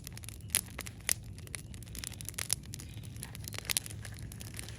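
Campfire crackling, with irregular sharp pops of burning wood over a low steady rumble.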